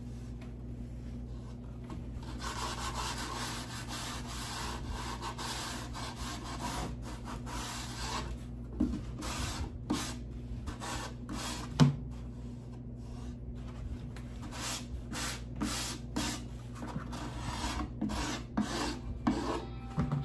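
Sanding a wooden dollhouse kit piece: a steady rubbing that breaks into short back-and-forth strokes from about eight seconds in, with a single light knock near the middle.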